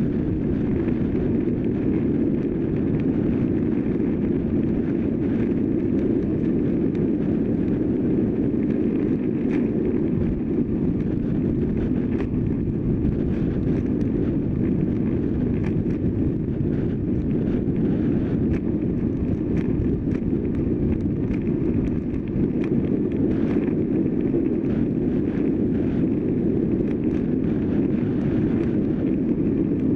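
Wind rushing over a bicycle-mounted camera's microphone with tyre and road rumble from a road bike riding at speed, steady throughout, with many faint scattered clicks and rattles.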